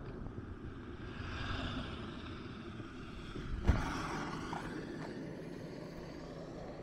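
Street traffic noise, with a vehicle passing and a steady low rumble. A single sharp knock a little past the middle is the loudest sound.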